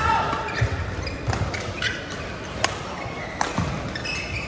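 A singles racquet-sport rally in an indoor hall: sharp racquet strikes come about five times at uneven gaps. Low thuds of footfalls and short squeaks of shoes on the court floor sound around them.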